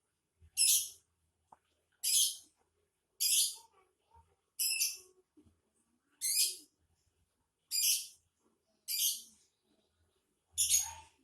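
Lovebird giving eight short, harsh, high-pitched calls, one about every second and a half.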